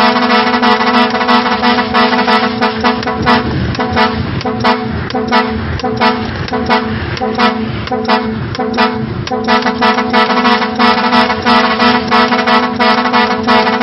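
Air horn set sounding a loud, steady chord of tones, chopped by many rapid stutters. For several seconds in the middle, lower tones slide up and down beneath the chord.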